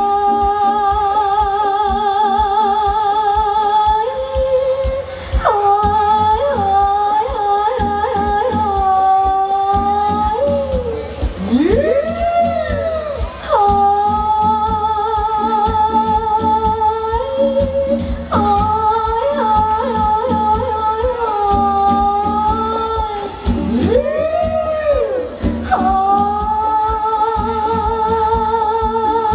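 Live Thai ramwong band music: a lead melody of long held, wavering notes with sliding phrases, repeating over a steady percussion beat.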